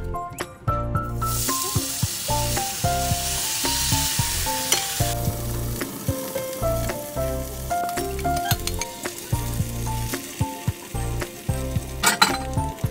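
Chijimi batter full of vegetable strips sizzling as it hits a hot frying pan, loud from about a second in for about four seconds, then quieter while a spoon spreads it out with light clicks and scrapes against the pan. Background music with a steady beat plays throughout.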